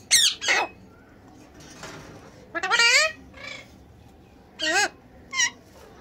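Alexandrine parakeet giving about five short calls with quiet pauses between. The loudest comes at the very start, and some waver up and down in pitch.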